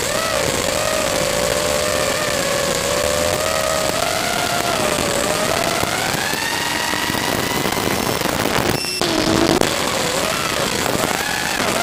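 Brushless motors and 5-inch propellers of an FPV racing quadcopter whining over a steady radio hiss, as heard in the analog video link's audio. The pitch rises and falls with throttle, climbing steadily for a few seconds. About three quarters of the way through it breaks off sharply and comes back lower before rising again.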